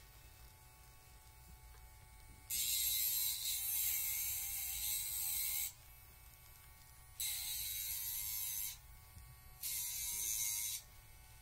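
Electric pet nail grinder running in three bursts, a high-pitched whir, as it files a dog's nails; the first burst lasts about three seconds, the next two a second or so each.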